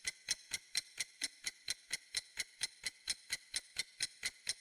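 Clock ticking in a rapid, even rhythm of about five sharp ticks a second.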